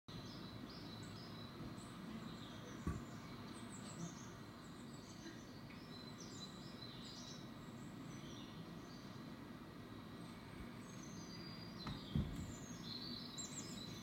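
Small songbirds chirping and trilling from a nature video playing through computer speakers, over a steady background hiss. Two brief soft thumps, one about 3 seconds in and one near 12 seconds.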